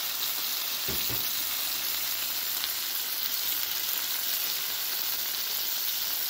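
Barbecue-sauced pork butt steaks sizzling steadily in fat and grease on a hot Blackstone flat-top griddle. There is a brief low bump about a second in.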